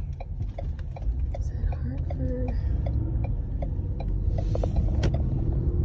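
Car interior while driving: steady low road and engine rumble, with the turn-signal indicator ticking evenly about three clicks a second. A single sharp click comes about five seconds in.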